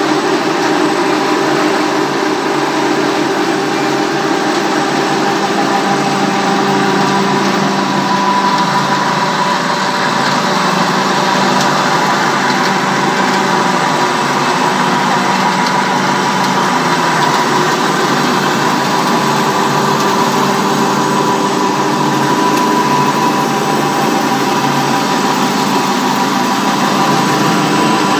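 Electric biomass pellet mill running steadily: a loud, even mechanical drone with a constant hum.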